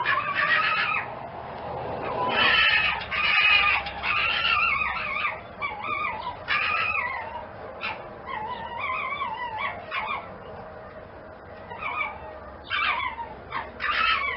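Animal calls: a run of high, wavering cries that bend up and down in pitch, many short calls one after another, loudest and densest a few seconds in.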